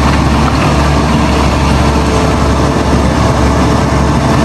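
Bulldozer sound effect: a heavy diesel engine running steadily at a deep, even pitch.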